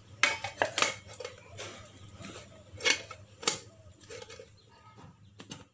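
Stainless steel tiffin lid being handled: scattered light metallic clicks and taps, about eight spread unevenly across the few seconds.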